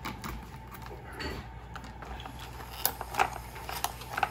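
A few light clicks and knocks from plastic toy kitchen pieces and their packaging being handled, spaced irregularly and coming more often in the second half.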